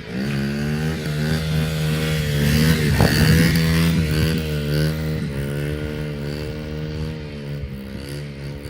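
A motor vehicle engine running, its pitch rising and falling a little as it is revved, loudest about three seconds in.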